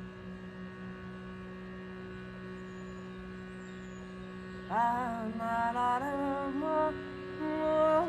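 Shrutibox drone: a steady reed chord held by the bellows. About halfway through, a woman's voice comes in, sliding up into a held note and singing long wordless tones over the drone.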